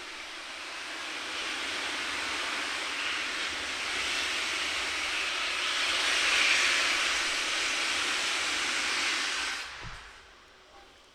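Steam hissing hard from the Peppercorn A1 Pacific steam locomotive 60163 Tornado, building over several seconds and then cutting off sharply near the end.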